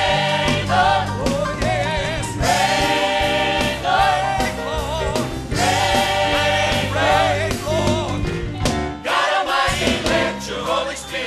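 Gospel choir singing live with vibrato, over instrumental backing with a steady beat.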